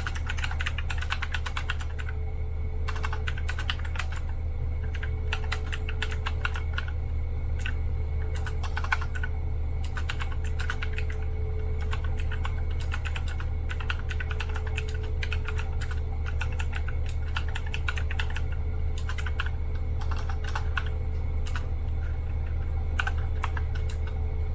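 Fast typing on a Magic-Refiner MK11 mechanical keyboard: rapid runs of key clicks broken by brief pauses.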